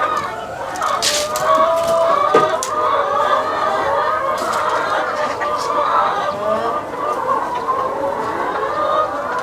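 A flock of chickens clucking and chattering without a break, many calls overlapping, with a few sharp clicks among them.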